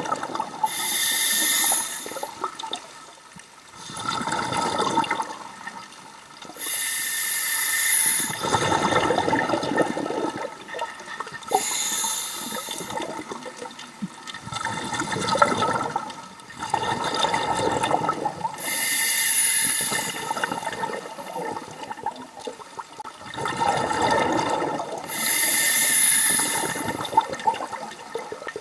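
Scuba diver breathing through a regulator underwater: a short hiss of inhalation through the demand valve alternating with a burst of bubbling exhaust, about one breath every six seconds.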